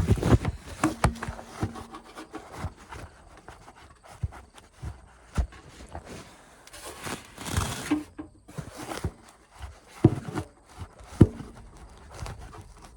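Irregular rustling with scattered knocks and clicks from someone moving through dry, harvested corn stubble and handling corn ears.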